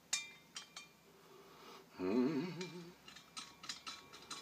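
Small metallic clicks and clinks of a brass fitting being turned into the valve head of a fire extinguisher by hand: a few single clicks near the start, then a quick run of them in the last second or so.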